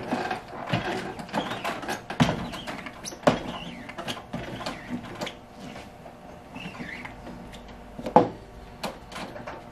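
Squeegee dragged across the mesh of a manual screen printing press, pushing the first coat of ink through onto a shirt, with several sharp clacks from the press's screen frame and arms. The loudest clacks come about two, three and eight seconds in.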